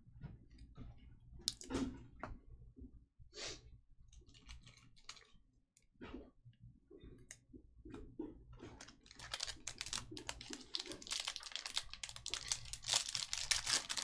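Trading cards and a foil card pack being handled: scattered soft clicks and card flicks, then from about nine seconds in a dense crackling of the pack wrapper being torn and crinkled.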